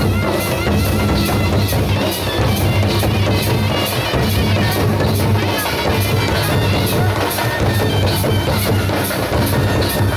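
A traditional drum troupe beating large barrel drums in a steady, driving rhythm. A high, wavering melody line plays above it, with a bright metallic stroke about three times a second.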